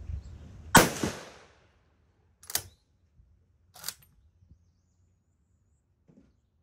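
A single shot from a Swiss K11 straight-pull rifle in 7.5×55 Swiss, with a short echoing tail, followed by two sharp metallic clicks about a second and a half apart, typical of the straight-pull bolt being pulled back and pushed home.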